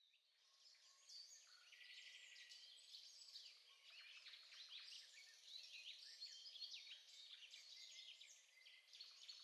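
Near silence with faint outdoor ambience of birds chirping, many small scattered chirps.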